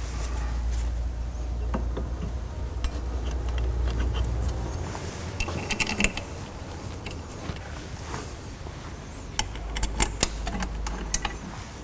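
Scattered light metallic clinks and taps as a brake caliper is fitted back over new front brake pads and its bolts are started. A low steady rumble runs under the first half and returns briefly near the end.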